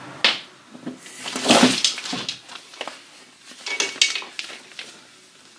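Handling noises as the old rear brake hose and its metal banjo fitting are worked free by hand on a motorcycle: sharp clicks and knocks, with a louder rustling scrape about one and a half seconds in and another cluster of clicks near four seconds.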